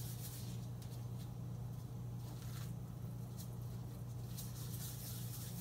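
Gloved hands rolling raw ground-beef meatball mixture between the palms and scooping more from a bowl: soft squishing and rubbing with a few faint rustles, over a steady low hum.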